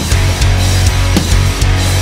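Loud rock music with a steady drum beat and heavy bass.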